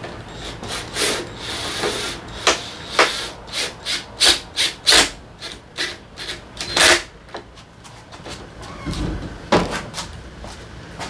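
Hand work on motorcycle parts: an irregular run of sharp clicks and knocks with some rubbing and scraping, then a dull thud and a click near the end.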